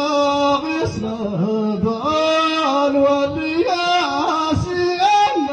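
A man sings a solo ahwach chant into a microphone, holding long notes and sliding through short ornamented turns between them.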